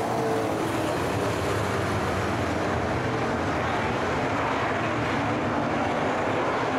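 A field of V8 super saloon race cars running hard around a dirt speedway oval: a steady engine din with pitches that drift up and down as the cars pass and lift off for the turns.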